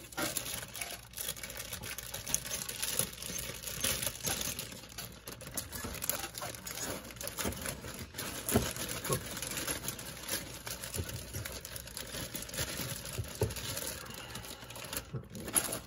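Clear plastic bag of model-kit sprues crinkling and rustling as it is opened and handled, with small light clicks throughout; it stops near the end.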